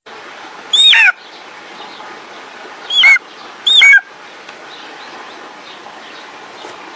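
Golden eagle calling: three short, high yelps, one about a second in and two around three to four seconds in, each sliding down in pitch. A steady background hiss runs under the calls.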